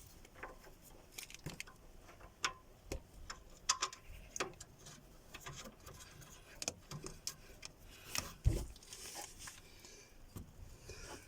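Irregular sharp metallic clicks and clinks of a wrench tightening the bolts of the bracket that clamps the new stabilizer-link bushing.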